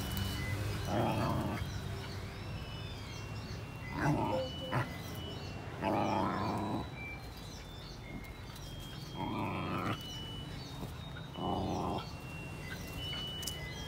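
Young dogs growling and snarling as they wrestle and bite at each other, in about five short bursts of under a second each.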